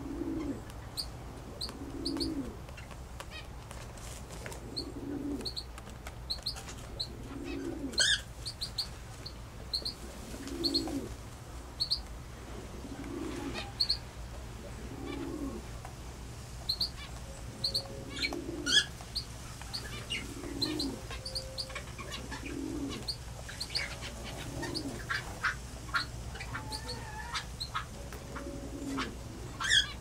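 Small birds chirping with short high notes, over a low muffled sound that repeats every one to three seconds, and a few sharp clicks.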